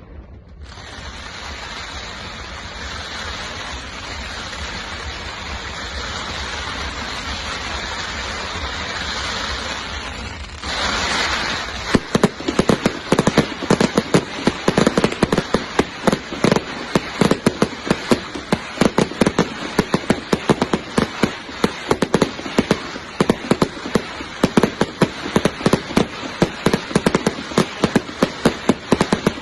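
Fireworks display finale. For the first ten seconds or so there is a continuous dense hiss and crackle that slowly grows louder. Then, after a brief surge, a rapid barrage of sharp bangs comes several a second.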